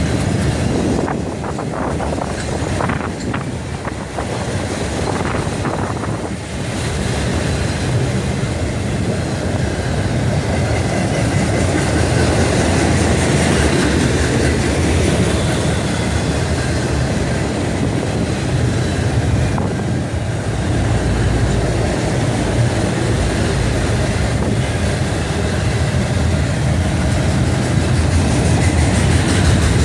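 Train passing close by: a steady, loud rumble of the train and its wheels on the rails, growing slightly louder toward the end.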